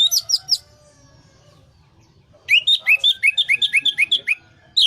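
Orange-headed thrush singing in runs of quick sweeping whistled notes. A short run of rising notes opens it, and after a pause of about two seconds comes a fast run of about ten repeated notes.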